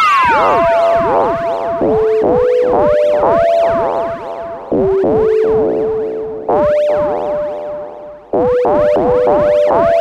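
Kawai S-100F monophonic analog synthesizer playing a slow line of single held notes. It opens with a falling pitch glide, and its sound is swept up and down rhythmically about four times a second. A delay adds echo.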